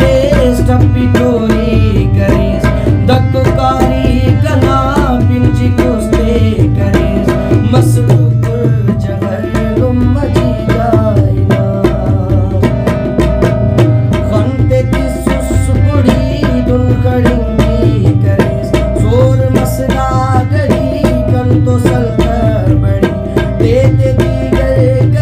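A man singing Urdu verses to harmonium accompaniment, with tabla playing a steady rhythm under the held harmonium notes.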